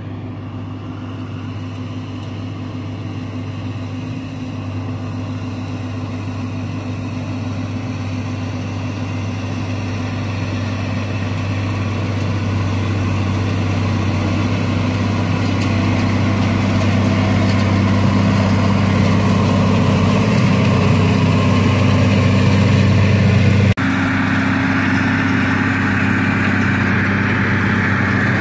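Massey Ferguson 6290 tractor's six-cylinder diesel engine running steadily under load as it pulls a working Claas Rollant round baler, growing louder as it comes closer. Near the end the sound changes suddenly to a closer, brighter engine note.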